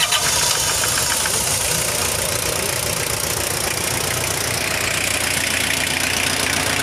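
Toyota 3C 2.2-litre four-cylinder diesel engine idling steadily right after starting, being run to check that its freshly resealed injection pump no longer leaks fuel. It gets louder and clearer from about four seconds in.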